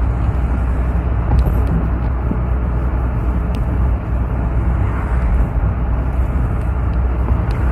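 Engine and road noise inside the cab of a Mahindra Bolero Maxi Truck Plus pickup driving at a steady speed: a steady low drone with tyre rush over it.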